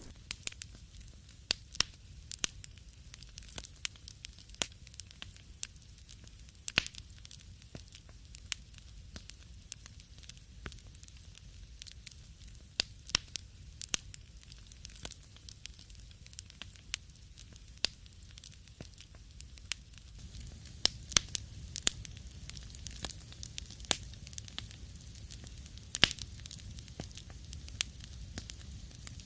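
Wood fire crackling in a fireplace: irregular sharp pops and snaps over a low, steady rumble of the flames, the pops coming a little thicker about two-thirds of the way through.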